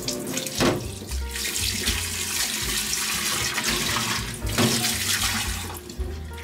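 Kitchen tap running into a glass bowl of boiled potatoes held in the sink, the water splashing steadily. It starts just after the beginning and stops shortly before the end.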